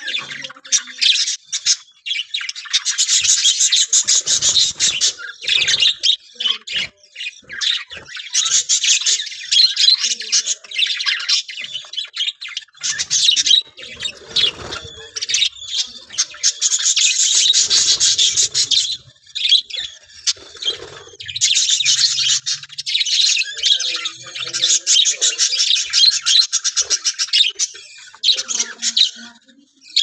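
A colony of budgerigars chattering and chirping together, a dense, rapid high warble that comes in long stretches with short lulls between them.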